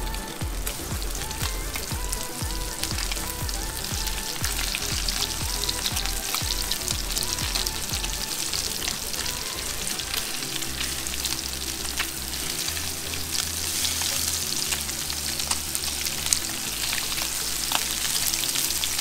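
Breadcrumbed fish pieces frying in shallow oil in a cast-iron skillet, a steady sizzle with crackles. Background music with a bass beat plays underneath.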